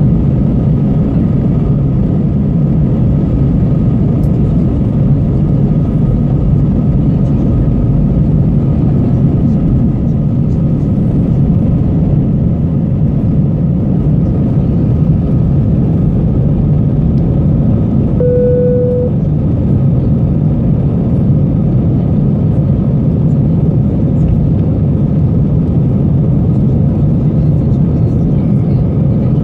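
Airbus A320 cabin noise on takeoff and initial climb: the jet engines at high thrust give a loud, steady low rumble heard from inside the cabin. One short steady beep sounds about two-thirds of the way through.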